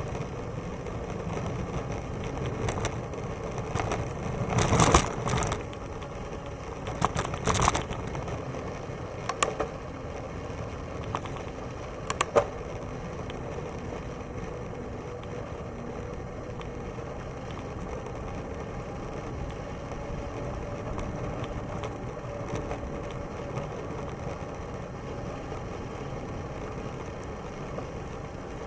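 Steady rolling and wind noise from a Moulton bicycle riding along a paved path, with a few sharp rattles about five seconds in, around seven to eight seconds and about twelve seconds in.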